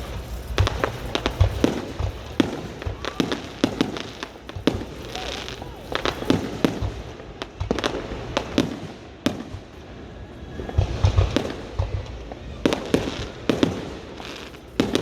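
Fireworks going off: repeated sharp bangs and crackling reports, some coming in quick clusters, over a low rumble.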